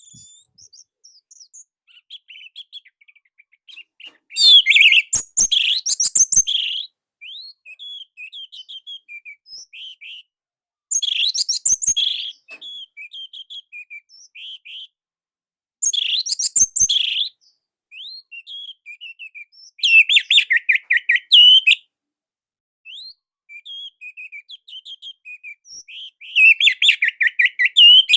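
Orange-headed thrush singing: loud, fast-warbled phrases of about two seconds, five times, with softer scattered chirps between them.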